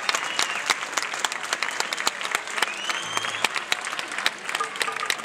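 Crowd applauding, a dense run of many hands clapping.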